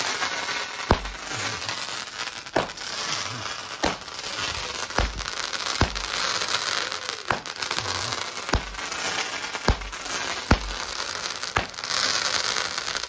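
A 19-shot barrage firework cake firing its shots in turn, about one a second, each a sharp loud bang. Continuous crackling and hissing from the rising glittering comet tails runs between the bangs.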